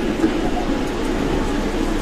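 Osaka Monorail train running along its elevated track, heard from inside the car: a steady rumble and hum from the straddle-beam monorail's rubber-tyred running gear, with a small knock about a quarter second in.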